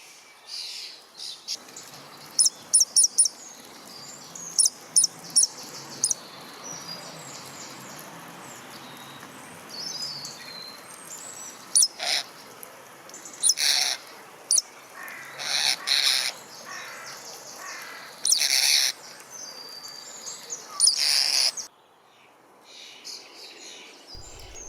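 Common starling singing: a varied run of high whistles and rapid clicks, then loud harsh rasping calls in the second half, part of its mimicry of crows and magpies.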